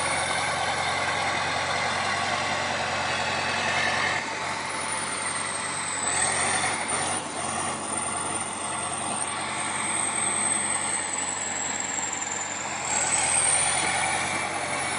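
Heavy machine's engine running steadily under load, with a thin high whine that slowly dips and rises.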